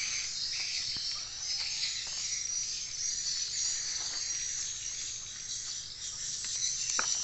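Insects chirring steadily and high-pitched, with a single sharp click near the end.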